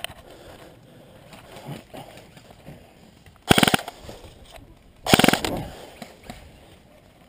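Airsoft gun firing two short rapid-fire bursts about a second and a half apart, each a quick rattle of shots.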